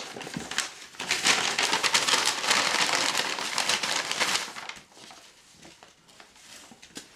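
Packaging being handled and unwrapped, crinkling and crackling densely for about four and a half seconds. It then drops to faint handling noise.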